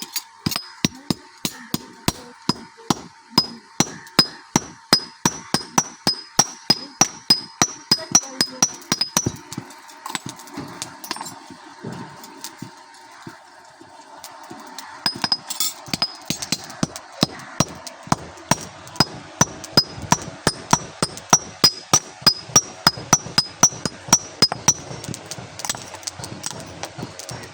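Blacksmith's hammer striking metal in a steady rhythm of about three blows a second, each blow with a short metallic ring. The blows thin out to a few scattered strikes in the middle, then resume steadily and grow sparse near the end.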